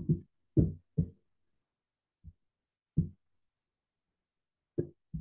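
Brief, muffled fragments of a man's voice: short mumbled syllables or hesitation sounds, several in the first second, one or two around the middle, and more near the end. Between them the track is silent.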